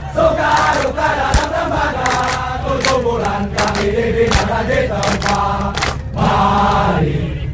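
A group of soldiers chanting a military yell in unison, in short pitched phrases, with sharp strokes at irregular intervals.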